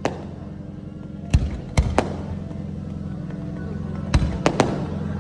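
Fireworks display: a string of sharp bangs from bursting shells, about seven of them, one at the very start, three close together between one and two seconds in, and a quick run of three near the end.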